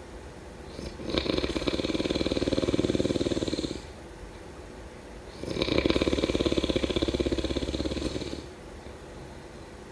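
A person snoring: two long, fluttering snores of about three seconds each, the first starting about a second in and the second about halfway through, with quieter pauses between them.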